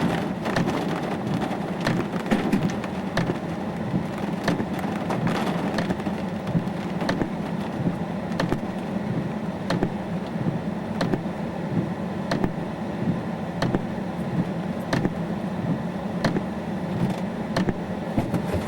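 A car driving on a wet road in heavy rain, heard from inside the cabin: a steady road and engine rumble with irregular sharp ticks, typical of rain drops hitting the car.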